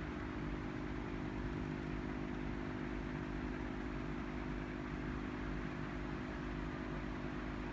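A steady mechanical hum: a constant drone with an even hiss over it, unchanging throughout.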